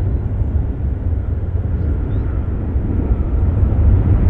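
Low, steady rumble of an Airbus A380-800's four jet engines as the airliner rolls out along the runway after landing.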